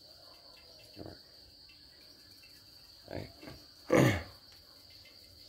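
Steady high-pitched trilling of insects, with a few short voice-like sounds over it, the loudest about four seconds in.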